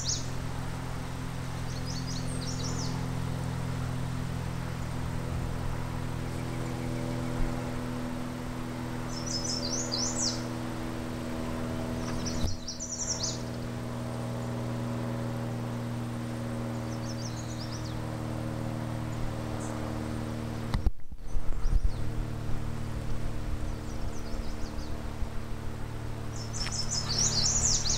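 Small birds calling, short high chirps and trills every few seconds, over a steady low hum. There are a few bumps a little after the middle.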